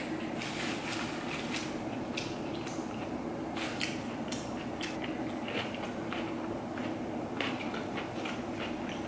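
Crisp lettuce leaves crackling and rustling as a lettuce wrap is filled with a spoon, folded by hand and bitten into: a string of short crackles and clicks, with crunchy bites, over a steady low hum.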